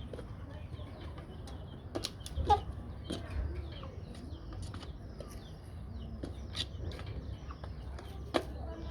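Aseel chickens clucking, with scattered sharp clicks and short high chirps. The loudest sounds come about two and a half seconds in and near the end.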